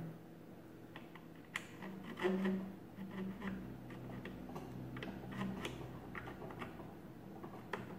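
Scattered light metallic clicks and taps as a pin and its linkage are worked back into the top of the oil-filled piston cylinder on a 1916 Burroughs Class 3 adding machine's handle mechanism.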